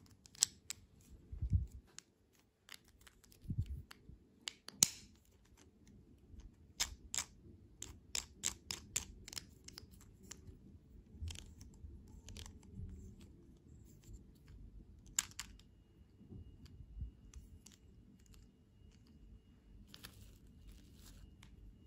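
Small hard plastic toy pieces from a Kinder Joy egg clicking and clacking as fingers handle and fit them together, in short scattered clicks with a quick run of them about seven to ten seconds in.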